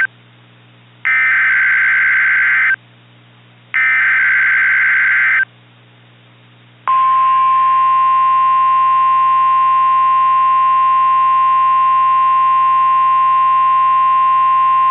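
NOAA Weather Radio emergency alert tones. First come two bursts of the buzzy SAME digital header, each about a second and a half long with a second's gap between. About seven seconds in, the steady single-pitch 1050 Hz warning alarm tone starts and holds. Together they signal an incoming emergency alert, here a Law Enforcement Warning.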